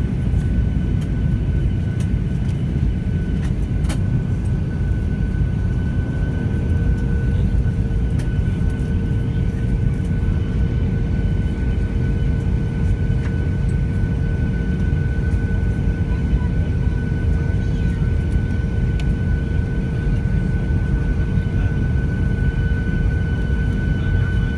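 Airliner engines heard from inside the passenger cabin: a steady, dense rumble with a thin high whine over it, and a second, lower whine joining about six seconds in.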